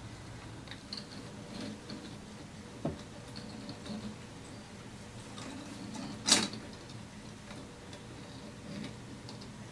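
3D-printed plastic chain-driven mechanical digital clock running with faint small ticks from its mechanism. There is a click about three seconds in and one sharp, louder clack about six seconds in, as the digits advance through the ten-minute carry.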